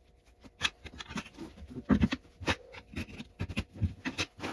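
Irregular clicks, knocks and scrapes of a golf-cart tire and rubber inner tube being handled on a workbench, with the loudest knock about two seconds in.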